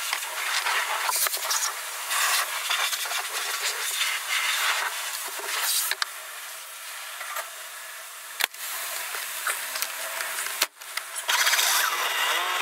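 High-pressure water spray from a wash lance hitting the underbody of a 1969 Fiat 500, heard from inside the cabin as an uneven hiss that swells and fades as the jet moves. Near the end comes louder rustling and knocking as the driver gets back into the seat.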